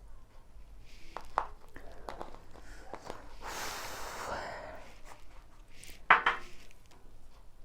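Chili being added to a bowl of instant noodles. There are soft clicks and clinks, a rustling hiss lasting about a second in the middle, and a sharper knock or clink near the end.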